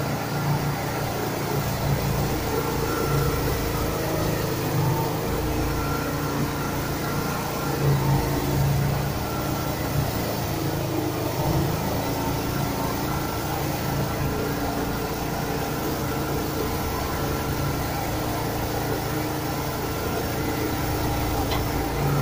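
Overhead rail-mounted straw-bedding machine running steadily, a continuous mechanical hum with several steady tones.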